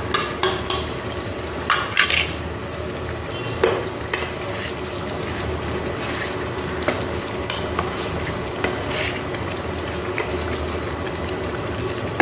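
A spatula stirring a simmering curry in a nonstick kadai, with scrapes and knocks of the spatula against the pan over a steady bubbling hiss. The sharpest knocks come about two seconds and three and a half seconds in.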